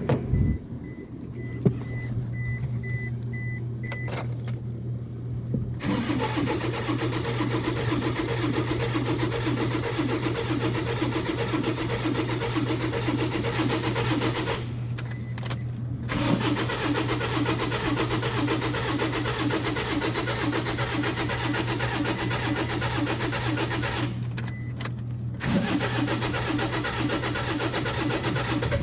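Toyota D-4D diesel engine cranked on the starter in three long spells of several seconds, with short pauses between, without settling into a run: a hard-starting engine. A beeping tone sounds during the first few seconds, over a steady low hum.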